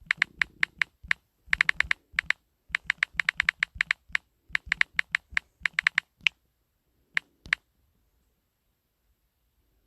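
Typing on a keyboard: quick, uneven runs of key clicks for about six seconds, two last clicks a little later, then it stops.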